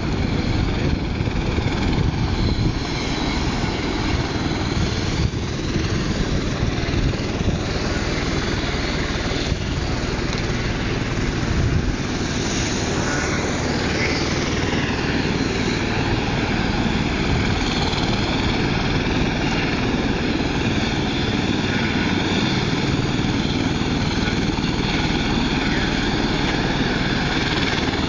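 Helicopter running steadily: dense rotor and engine noise with a steady high turbine whine on top.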